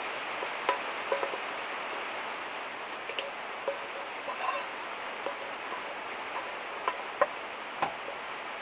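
Steady hiss of rain on a van's metal roof, with a dozen or so scattered light taps and clicks, the sharpest about seven seconds in.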